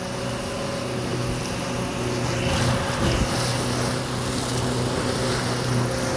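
Powered in-mast furling gear and winch on an Oyster 565 yacht running with a steady hum as the mainsail is rolled into the mast to take in a reef, over wind and water noise.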